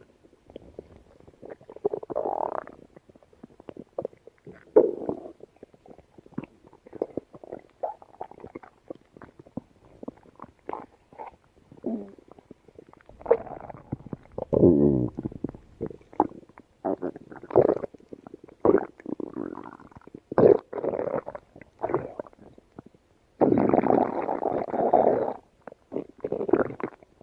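A yellow Labrador's stomach and intestines gurgling and rumbling: irregular squelches, pops and squeaky gurgles, with a longer, louder rumble near the end.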